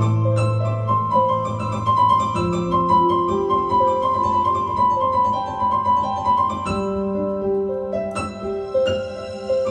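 Solo piano improvisation. A low bass chord rings under a stream of quick, repeated treble notes, then a new chord is struck about seven seconds in.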